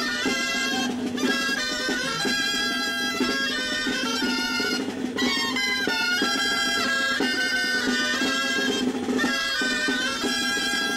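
Traditional folk tune played on pipes over a steady held drone note, with a drum keeping time.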